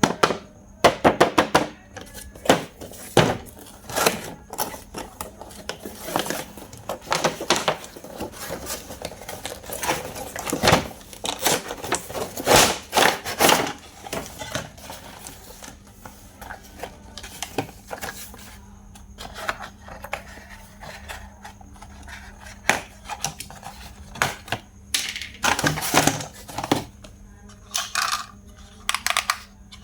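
Hands handling plastic packaging and toy parts: irregular clicks, taps and rustling, busiest in the first half and again with a cluster near the end.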